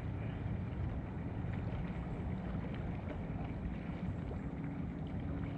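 A steady low rumble of outdoor background noise, with a few faint scattered ticks.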